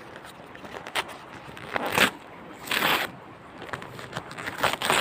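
Paper envelope being torn open by hand: crinkling and tearing paper, with louder rips about two seconds in, around three seconds and near the end.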